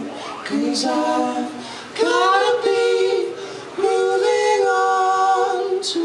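A singer's voice in a live band performance, holding two long notes in the middle, with hardly any instrumental backing heard.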